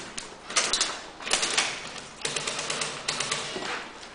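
Airsoft guns firing several short bursts of rapid clicking, each under half a second long.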